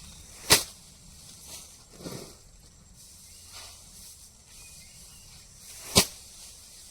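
Sheaves of rice being threshed by hand, beaten against a hard surface: two sharp whacks, one about half a second in and one about six seconds in, with a fainter swish between them.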